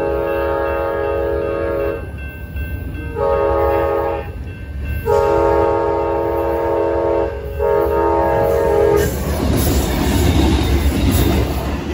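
Amtrak P40DC diesel locomotive's air horn sounding a chord in four blasts for a grade crossing, the first held from before and breaking off about 2 s in, then three shorter ones. About 9 s in the horn stops and the locomotive passes close by, its diesel engine and wheels on the rails making a loud rumble.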